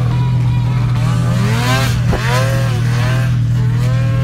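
Mountain snowmobile's two-stroke engine revving up and down repeatedly as it is throttled through deep powder snow.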